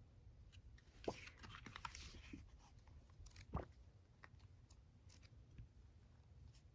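Faint handling of album packaging and a photo book: a sharp click about a second in, a brief rustle of paper or plastic, then a soft knock and a few light taps.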